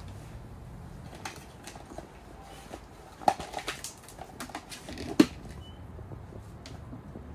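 Light clicks and knocks of things being handled, with two sharper knocks about three and five seconds in, the second with a short ring.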